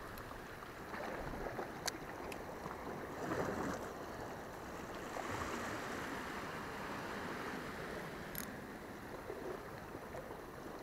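Sea water washing against shore rocks, swelling and easing twice, with a few sharp clicks along the way.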